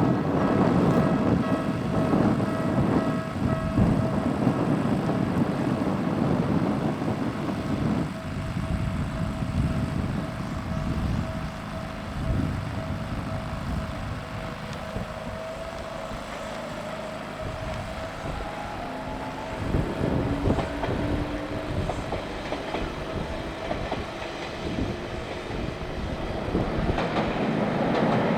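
Electric train of the Ueda Electric Railway Bessho Line running along the track, its wheels clattering over the rail joints with a steady thin whine. The clatter is loud at first, fades through the middle and builds again near the end.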